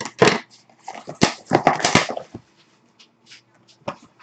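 A sealed cardboard trading-card box being cut open with scissors and opened by hand: several loud scraping, rasping strokes of blade and cardboard in the first two seconds or so, then fainter taps and rustles as the lid and packs are handled.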